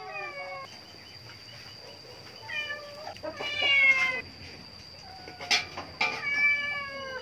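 Domestic cat meowing repeatedly: several drawn-out meows that bend in pitch, the loudest about four seconds in. Two sharp clicks come about a second apart near the end.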